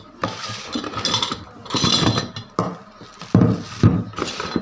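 Cardboard box and plastic wrap rustling and crinkling as an angle grinder is lifted out of its packaging. Two sharp knocks a little past halfway are the loudest sounds.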